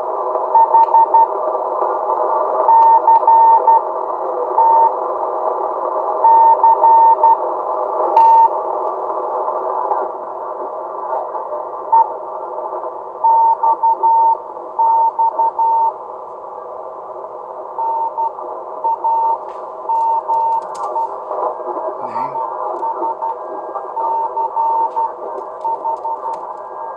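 Morse code (CW) signal heard through a ham radio receiver: a single steady-pitched tone keyed on and off in dots and dashes over a constant hiss of band noise, narrowed by an audio filter. The noise and signal drop somewhat about ten seconds in.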